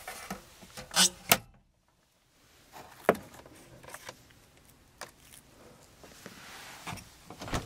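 Knocks and clicks of a 1957 Cadillac's glove box lid and sun visor being worked by hand: two sharp knocks about a second in, then a single knock about three seconds in and a few faint clicks.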